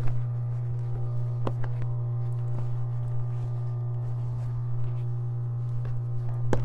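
Steady electric hum of an industrial sewing machine's motor left running while the machine is not stitching, with a few light clicks and taps from handling leather pieces on the table.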